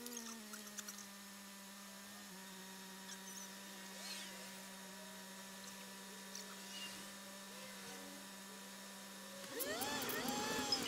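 A steady low hum with overtones, heard inside a car stopped at a junction, dipping slightly in pitch about two seconds in. Near the end a louder, busier sound with sliding pitches comes in as the car pulls away.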